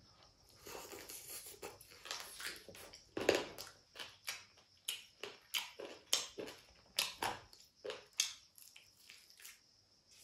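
A person biting and chewing a crispy fried chicken lollipop, with crunches about two a second. The loudest crunch comes a little over three seconds in.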